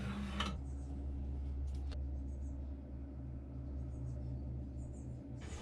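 Faint scratching of a pencil drawing grid lines on masking tape over a steady low hum.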